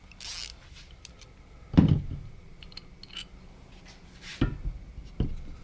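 Sway bar mount brackets, bushings and bolts handled on a workbench: a brief rustle, then a few knocks and clicks, the loudest just under two seconds in.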